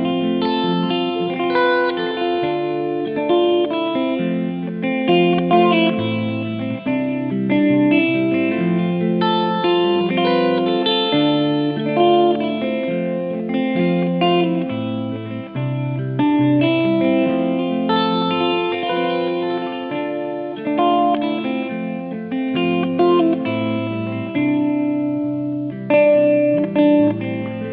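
Background music: a guitar picking out a melody over steady changing chords.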